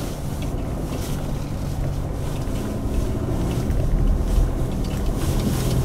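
2016 Chevrolet Colorado Z71 pickup driving slowly on a dirt track: a steady low engine drone with road and tyre noise, heard inside the cab, growing a little louder toward the end.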